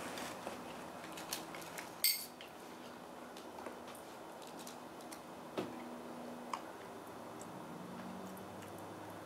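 Quiet handling noises: scattered small clicks and taps as a piece of dried mushroom is handled. There is one sharp clink about two seconds in and two more small knocks past the middle.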